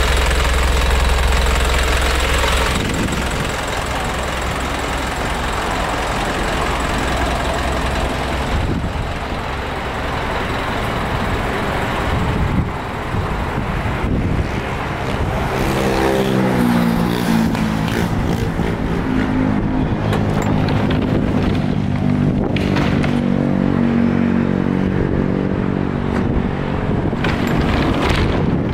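Isuzu 4HK1 5.2-litre turbo-diesel idling, heard close up for the first few seconds. Then outdoor vehicle noise: a steady engine drone with passing traffic.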